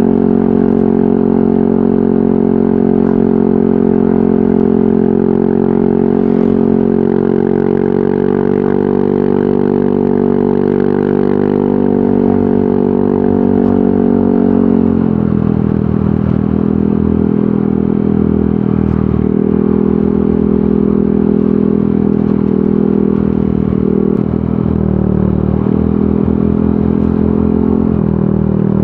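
Yamaha NMAX 155 scooter's single-cylinder four-stroke engine running through a VMAX Onyx aftermarket muffler. It holds a steady pitch, then about fifteen seconds in it drops to a lower, less even pitch.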